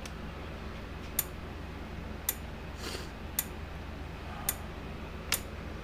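Parmak Super Energizer SE-1 electric fence charger running and ticking with each output pulse, a sharp click about once a second, over a steady low electrical hum.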